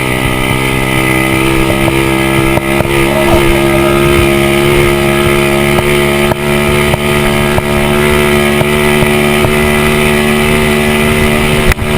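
Single-cylinder four-stroke 110cc pit bike engine running flat out at high revs during a top-speed run, its note held steady, with a few light clicks over it.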